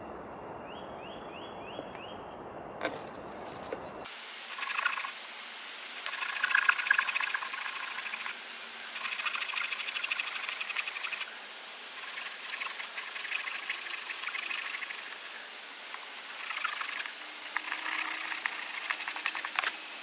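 Folding pruning saw cutting through a green branch: runs of rasping strokes lasting one to three seconds with short pauses between, starting about four seconds in. Before the sawing, a bird chirps briefly.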